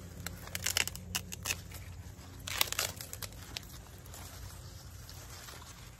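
Plant leaves and stalks rustling and crackling as okra is picked by hand among tall plants, in uneven clusters of short crackles about a second in and again from about two and a half to three and a half seconds in.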